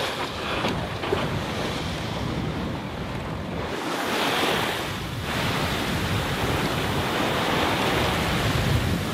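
Sea water rushing and foaming along the hull of a sailing yacht under way, with wind blowing across the microphone. The rushing is steady, with a brighter hiss for about a second around four seconds in.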